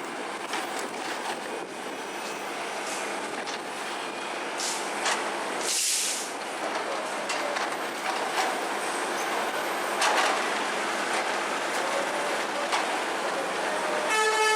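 Tata Hitachi excavator working: a steady mechanical din with scattered metal clanks, a short hiss about six seconds in, and a brief horn-like tone at the very end.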